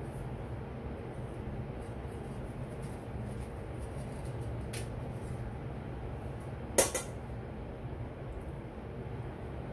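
A metal knife clinking sharply once against a stainless steel bowl about two-thirds of the way in, with a fainter tap a couple of seconds before, over a steady low hum.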